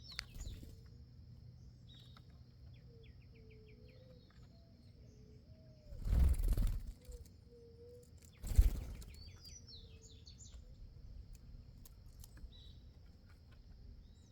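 Small birds chirping at a feeder, with a short trill of quickly repeated notes about two seconds in and scattered high calls later. Two loud whooshing rushes, about six and eight and a half seconds in, stand out over the calls.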